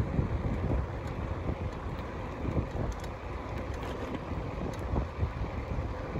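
Wind rushing over the microphone of a moving bicycle, over the low rumble of tyres rolling on cracked asphalt, with a few faint ticks.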